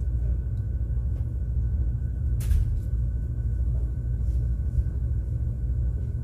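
Steady low rumble of a ship's engines and machinery heard inside a cabin, with a faint steady high tone over it. One sharp click about two and a half seconds in.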